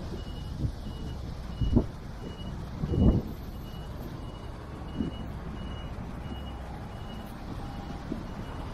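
Road traffic rumble with a vehicle's reversing alarm beeping steadily at one pitch, about two beeps a second. Two brief low thumps stand out about two and three seconds in, the second the louder.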